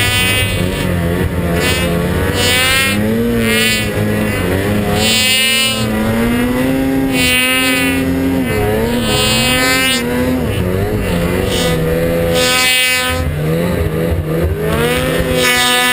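Snowmobile engine revving up and down over and over, its pitch rising and falling every second or two as the sled is worked through deep snow.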